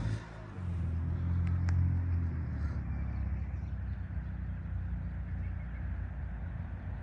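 Outdoor park ambience dominated by a steady low rumble, with two faint clicks about a second and a half in.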